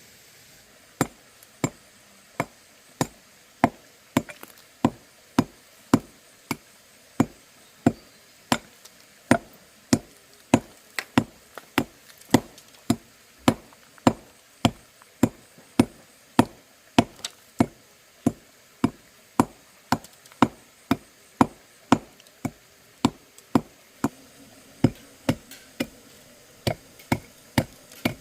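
Knife chopping steadily on a wooden cutting board, sharp single strokes a little under two a second, kept up without a break.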